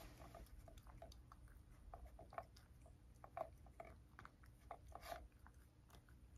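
Cat chewing small crunchy Ciao Churu Bits treats from a bowl: a faint, irregular run of crunches and mouth clicks, the loudest about five seconds in.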